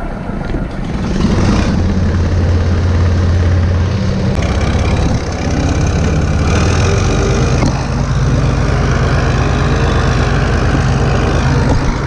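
John Deere 4230 tractor's six-cylinder diesel engine running steadily as the tractor is driven, its note changing about halfway through.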